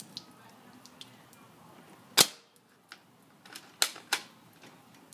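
Airsoft gun shots: three sharp cracks, the loudest about two seconds in, then two in quick succession about a second and a half later, with a few faint ticks between.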